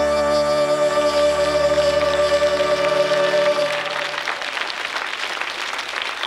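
A song's instrumental ending: a held chord that stops about three and a half seconds in, with audience applause building under it and carrying on after the music ends.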